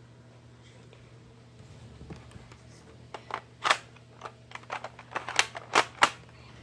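A quick, irregular run of sharp clicks and knocks, starting about halfway through, with four louder knocks in the last three seconds.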